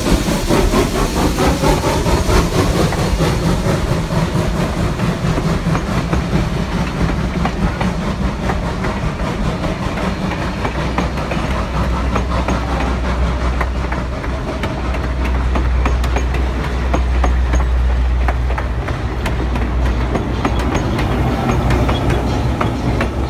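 A passenger train passing close by on a grade, behind the Santa Cruz Portland Cement No. 2 steam locomotive: the locomotive's stack exhaust working hard as its cab goes past, then the coaches' wheels clicking steadily over the rail joints. Near the end a low, steady drone builds as a diesel locomotive at the rear of the train comes past.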